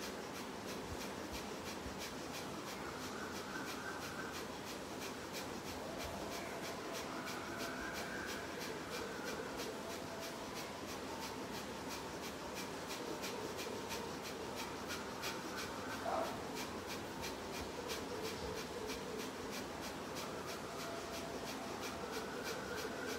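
Kapalabhati breathing: quick, forceful exhalations puffed out through the nostrils in a fast, even rhythm, repeating steadily. One brief louder sound breaks in about two-thirds of the way through.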